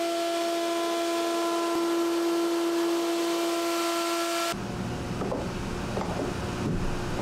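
Handheld electric router running at full speed, cutting along the edge of an old teak plank: a steady high whine over the hiss of the cut. It cuts off suddenly a little over halfway through, leaving softer low sounds.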